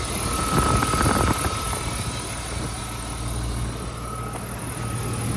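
BMW E34 525i's straight-six engine idling steadily, just started after an oil change, with a faint steady whine above the low running note.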